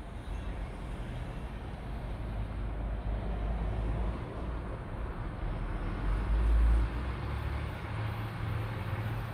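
Low, steady vehicle rumble heard from inside a car, engine and road noise together. It swells louder for a moment about six to seven seconds in, then settles into a steadier low hum.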